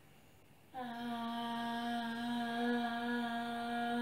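A girl humming one long, steady note into a bowl covered with tight cling film, starting about a second in; the note makes the cling film vibrate so the glitter on it moves.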